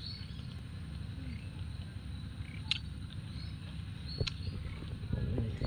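Close chewing of a bite of raw nam-nam fruit, a sour, firm-fleshed fruit, with a few sharp clicks and a patter of small crackles near the end. Faint short high chirps sound in the background.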